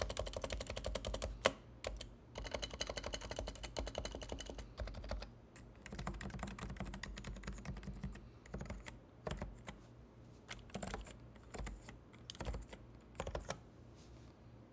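Typing on a stock Realforce 87U silent (low-noise) Topre electro-capacitive keyboard. It starts as a fast run of keystrokes, thins to scattered strokes after about five seconds, and dies away near the end.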